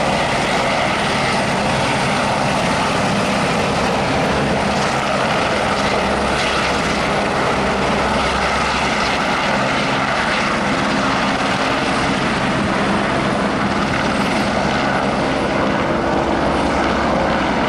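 Helicopter engine and rotor noise, loud and steady.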